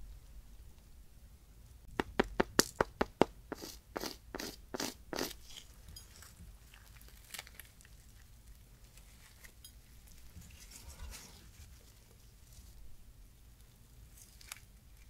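Crisp crust of a whole wheat salt butter roll crackling as gloved hands tear the roll apart. About two seconds in there is a quick run of sharp crackles, then softer crackling and tearing, with a few single snaps near the end.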